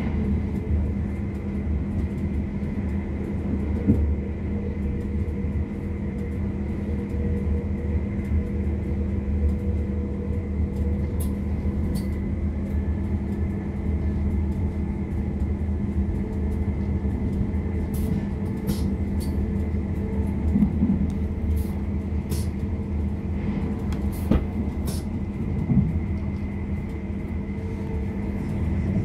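Cabin noise inside a moving Class 444 Desiro electric multiple unit: a steady low rumble from the running gear with faint steady tones over it. A scattering of sharp ticks comes in the second half.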